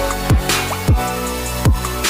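Background electronic music with a heavy beat: deep kick drums that drop in pitch, three times, over a held bass line.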